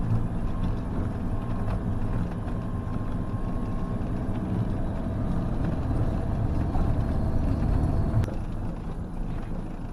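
Motorhome engine and road noise heard inside the cab while driving, a steady low hum, with a brief knock about eight seconds in.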